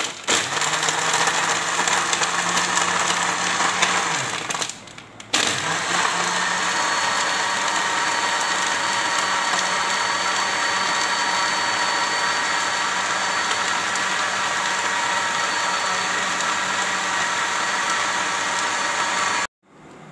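Electric jug blender running, blending chopped plums, peaches, water and ice cubes into juice. The motor winds down and stops briefly about four seconds in, then starts again and runs steadily until it cuts off near the end.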